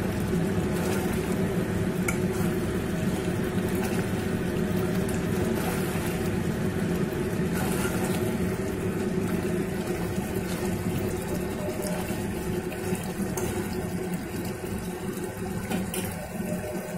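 Chicken curry boiling hard in an aluminium pot over a high gas flame: a steady bubbling as the gravy is reduced to thicken it. A metal spoon stirs through the pot around the middle.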